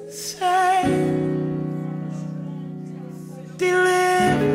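Slow music: held keyboard chords that change about a second in and again near the end, fading between changes, with a voice holding a note with vibrato over each new chord.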